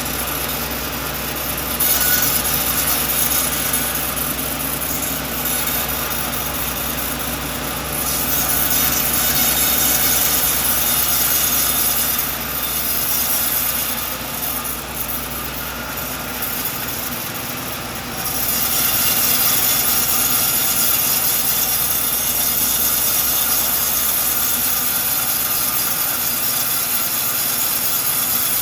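Sawmill saw cutting through a coconut log, a loud high-pitched sawing noise that swells and eases over several long stretches, over the steady hum of the mill's engine, which falls away about two-thirds of the way through.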